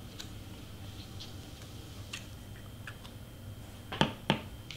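Light taps and small rustles of cardstock being pressed and handled on a cutting mat, with two sharper knocks close together about four seconds in.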